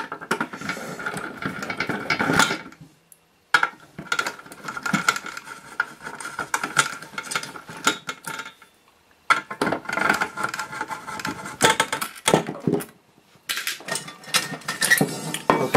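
Metal clicking, clattering and scraping as a circuit board's metal shielding is worked loose with a tool, in four bursts separated by short pauses.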